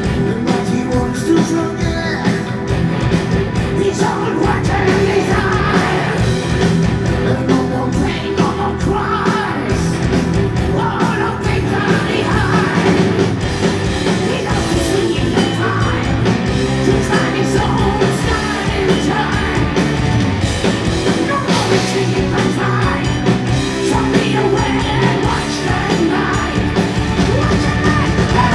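A heavy metal band playing live: distorted electric guitars, bass and drums with a man singing lead and shouted vocals, heard loud from within the audience.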